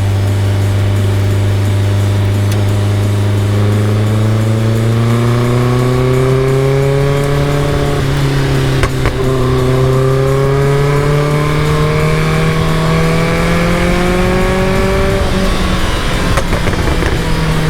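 Caterham Super Seven engine pulling under acceleration, its pitch climbing slowly as the revs rise. A gear change drops the pitch about halfway through, the engine climbs again, and there is another shift near the end.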